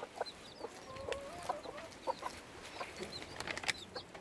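A mother hen clucking low and softly while her newly hatched chicks peep in short, high cheeps throughout. Scattered sharp clicks and scratches come from the birds moving in the bedding.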